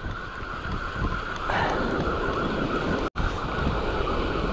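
Wind buffeting the microphone over the steady wash of surf breaking on the beach. The sound cuts out for an instant about three seconds in.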